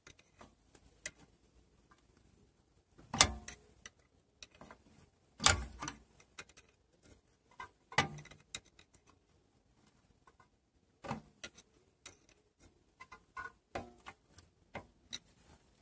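A screwdriver working the toothed star-wheel adjuster of a Mercedes Sprinter's drum-type parking brake through a hole in the disc: irregular metallic clicks and ticks as the teeth are pushed round, with a few louder knocks. The adjuster is spreading the worn brake shoes out toward the drum.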